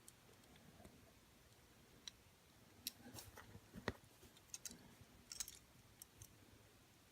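Faint, scattered small clicks and taps of a tiny diecast car wheel being fitted onto a toy car's axle by hand. The clicks come irregularly, bunched in the middle, with one sharper click a little before four seconds in.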